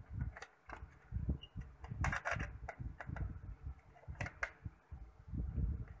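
Handling of a plastic toy remote-control transmitter as its metal rod antenna is fitted: dull low thumps with scattered sharp plastic clicks and rattles, including a cluster of clicks about two seconds in and two more a little after four seconds.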